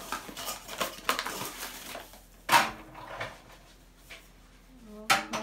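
Granulated sugar scooped with a cup from a paper sugar bag and poured into a plastic basin, with the paper rustling. Irregular rustles and pours, the loudest a sudden rush about halfway through.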